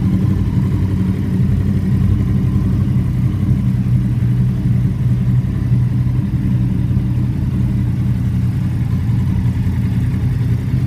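2014 Yamaha YZF-R1's crossplane inline-four engine running steadily at low revs through its exhaust, close to idle, with no blips of the throttle.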